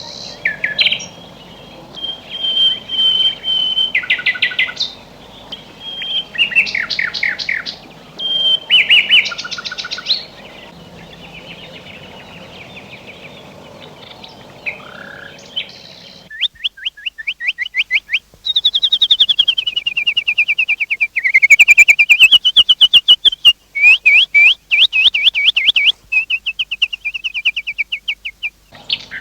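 Songbirds singing: separate chirps and short trilled phrases over faint background ambience. About halfway through, the sound changes abruptly to louder, fast rapid-fire trills of quickly repeated notes that sweep up and down in pitch.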